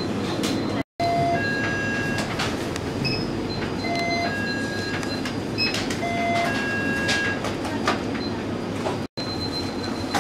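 Busy convenience-store ambience: a steady hum and hubbub of the shop, with short electronic beeps and tones at several pitches recurring every couple of seconds. The sound drops out briefly twice, about a second in and near the end.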